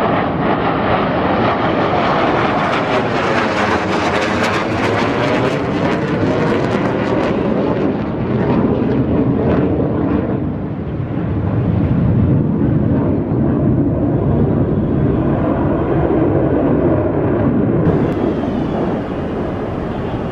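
MiG-29 fighter's twin jet engines during an aerobatic display: a loud, steady rushing noise. Its tone sweeps with a swirling, phasing quality a few seconds in.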